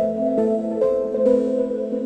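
Instrumental music: a melody of held notes over sustained chords, the notes changing about twice a second.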